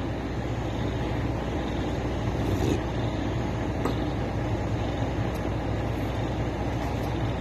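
Diesel engine of a crawler crane running steadily with a low, even hum, and a couple of faint clicks partway through.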